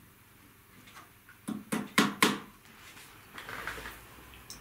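Upholsterer's hammer tapping a tack through heavy jute burlap into a wooden seat frame: four quick blows about a second and a half in, the last two loudest, followed by a softer rustle of the cloth.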